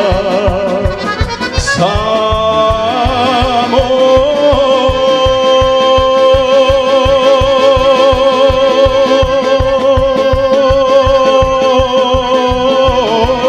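Male vocalist singing a Serbian folk song live with a band of violin, bass guitar and drums. About two seconds in the voice slides upward, then holds one long note with vibrato until near the end, over a steady drum beat.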